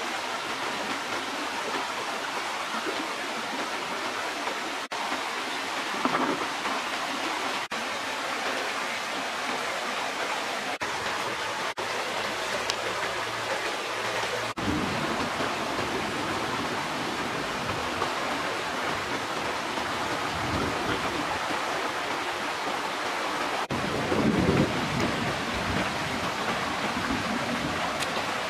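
Steady rushing of flowing river water, with a few faint rustles over it. The noise dips for an instant several times.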